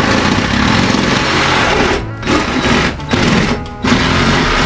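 Handheld power saw cutting through the wooden wall sheathing, its motor and blade running fast and stopping briefly three times as the trigger is let off.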